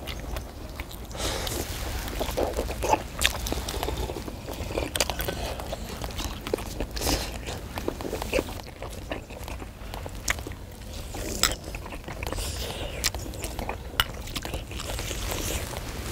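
People eating fish cake skewers and hot broth: chewing, biting and slurping, with scattered small clicks of skewers, bowls and spoons, over a low steady rumble.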